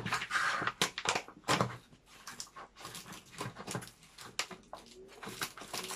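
Crinkling and crackling of a Faberlic Wellness shake-mix pouch as it is handled and pulled open, with irregular crackles that are louder in the first couple of seconds and sparser after.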